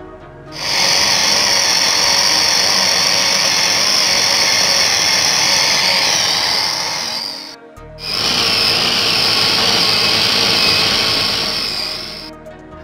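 Electric food processor motor running, its blade grinding boiled meat and lentils into shami kabab paste; it runs about seven seconds, stops for a moment, then runs again for about four seconds.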